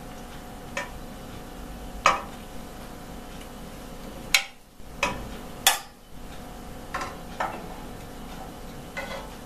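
Metal spoon clinking against the rim and sides of a pressure cooker pot, about seven separate clinks at uneven intervals, as cooked meat and carrot are fished out of the broth.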